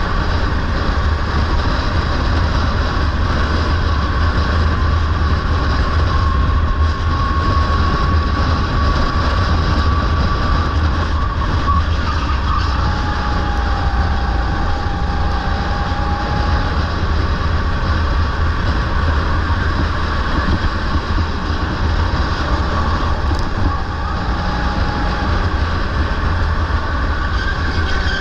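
Onboard sound of a rental racing kart at speed: its small engine running steadily under a heavy low rumble, with a faint engine whine that slowly rises and falls in pitch. The driver found this kart down on power.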